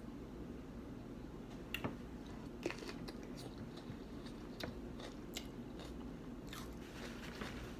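A person biting and chewing food close to the microphone, with a few sharp, crisp crunches spread through and a run of them near the end.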